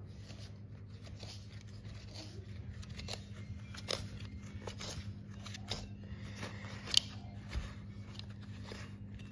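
A spoon stirring stiff chocolate chunk cookie dough in a plastic mixing bowl: irregular crunchy scrapes and clicks as the spoon works the dough and knocks the bowl, the sharpest about seven seconds in. A steady low hum sits underneath.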